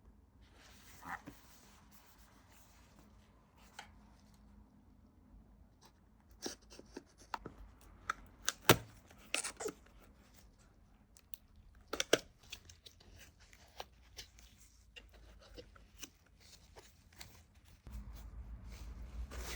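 Keyboard packaging being handled and opened: scattered taps, clicks and tearing or crunching of the box and wrapping, with a sharp knock about nine seconds in and another about twelve seconds in.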